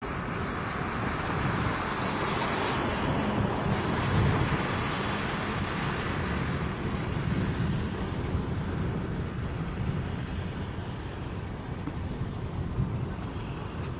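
Wind buffeting the microphone: a steady, fluttering low rumble with a hiss above it, with no crack or clap of thunder.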